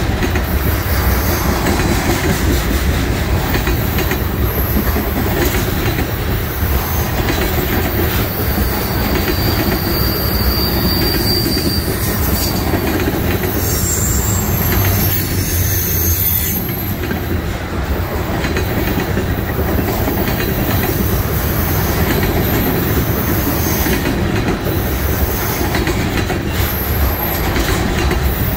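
Loaded trash train's container cars rolling by: a steady rumble of steel wheels on the rails with rail-joint clatter. Thin, high wheel squeals come and go several times.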